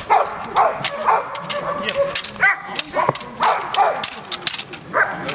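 A protection-trained dog gripping a helper's padded bite suit, giving repeated short high yips and whines that fall in pitch, with sharp knocks and slaps from the struggle.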